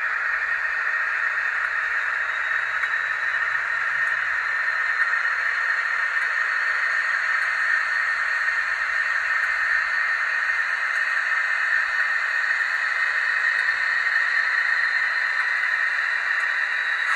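A class 56 diesel engine sound played by the DCC sound decoder of an N gauge Dapol model locomotive through its tiny speaker: a steady, thin, hissy engine note with almost no bass and a faint high whine that rises slightly and falls back.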